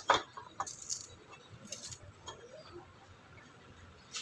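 A sharp click, then a few fainter clicks and short rustles in the first two seconds: small tools and parts being handled while a soldering iron is picked up.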